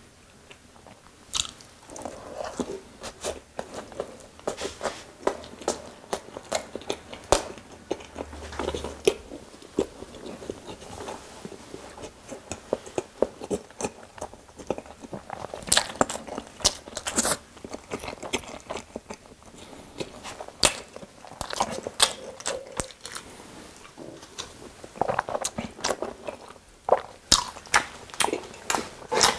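Close-miked chewing of a Korean street-style toast sandwich: irregular wet mouth clicks and soft crunches as the bread and filling are bitten and chewed.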